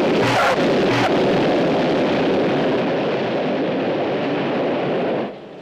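Jet airliner landing: a loud, steady rush of engine and air noise, with two short bursts of tyre noise about a third of a second and a second in as the main wheels touch the runway. The noise cuts off suddenly near the end.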